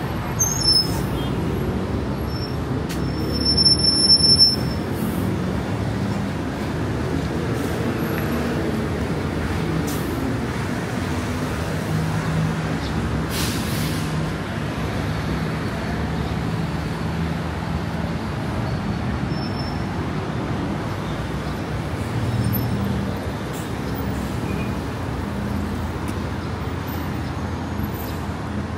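City road traffic with buses: a steady engine rumble, with a brief high squeal about four seconds in, the loudest moment, and a short hiss around the middle.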